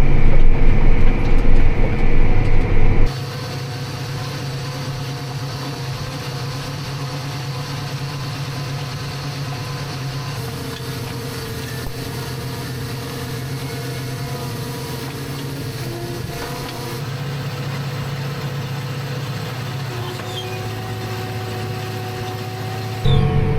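A vehicle engine running steadily. About three seconds in, the sound drops suddenly to a quieter steady drone with held tones that shift now and then, then grows loud again near the end.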